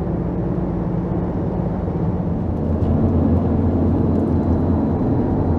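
Campervan engine and road noise heard from inside the cab while driving: a steady low hum whose note shifts and grows slightly louder about three seconds in.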